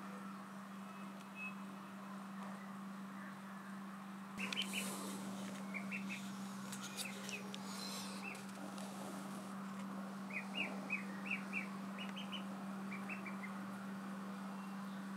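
Ducklings peeping in quick runs of short, high peeps, starting about four seconds in and again in the second half. Some rustling comes with the first run as they shift about. A steady low hum runs underneath.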